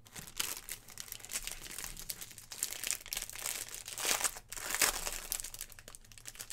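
Clear plastic packaging crinkling as it is handled, a run of quick crackles with louder crackles about four and five seconds in.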